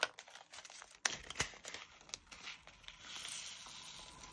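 Small plastic clicks and taps as drill storage pots and a small bag of resin diamond-painting drills are handled, then a soft, steady crinkling rustle from about three seconds in as the bag is shaken to get the drills out.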